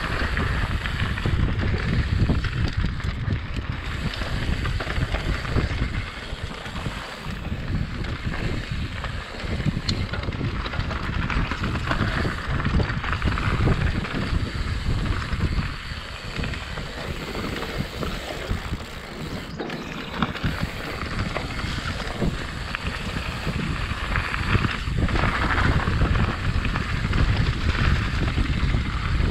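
Wind buffeting the microphone over the steady rolling noise of a mountain bike riding a dirt trail.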